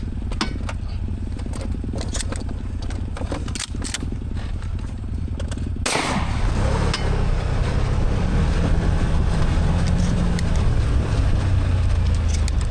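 Side-by-side UTV engine running with rattles and knocks from the vehicle; about six seconds in there is a sharp bang, after which the engine revs up louder and holds there.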